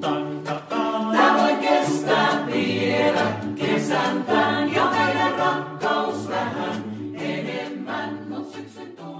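Small vocal ensemble singing a cappella in Finnish, several voices in parts including a low bass line. The song gradually fades out near the end.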